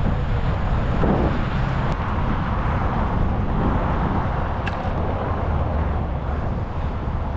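Wind rumbling over the microphone and the hum of the ride while cycling along a road, steady throughout, with a brief click about two seconds in and a short high chirp near five seconds.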